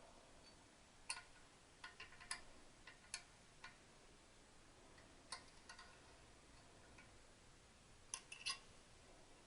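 Quiet workshop with sparse, irregular light metallic clicks and clinks from hand tools and parts being handled on the motorcycle, a few close together about two seconds in and again near the end.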